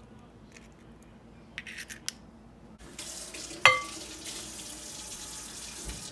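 Egg being cracked into a small glass bowl: a few faint shell clicks. About halfway through a steady hiss starts, and a single sharp glass clink rings out as the small glass bowl is tipped against the glass mixing bowl to pour in the egg.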